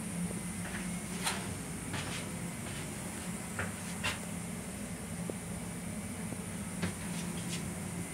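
Steady low hum and hiss of a Long Island Rail Road M7 railcar heard from inside its small restroom, with a few sharp clicks and knocks scattered through it.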